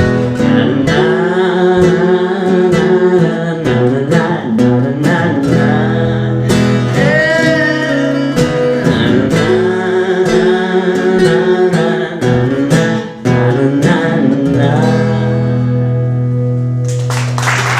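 Acoustic guitars strumming and picking the closing bars of a song, with some wordless singing. The music stops about seventeen seconds in and audience applause starts.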